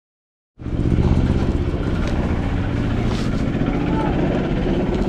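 A motor vehicle engine running steadily, cutting in abruptly about half a second in.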